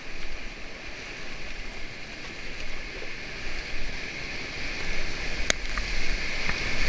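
Whitewater rapid rushing steadily ahead of a paddle raft, getting louder near the end as the raft reaches the white water. A single sharp click about five and a half seconds in.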